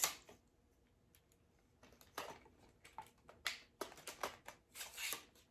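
Handling noise of a ring light and its stand being fitted together: a sharp click at the start, then after a short pause a run of irregular clicks and scrapes of plastic and metal parts.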